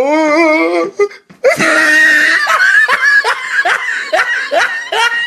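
A man laughing hard. A drawn-out wavering laugh comes first, then after a brief pause a run of short rising 'ha's, about two or three a second.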